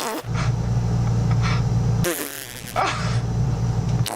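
Voicemod fart sound effect playing on a loop: a loud, low buzzing fart that runs long, breaks off about halfway, then starts again.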